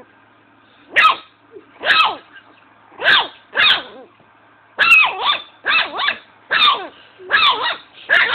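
Chihuahua puppy yapping: about a dozen short, high-pitched barks, starting about a second in and coming quicker in the second half.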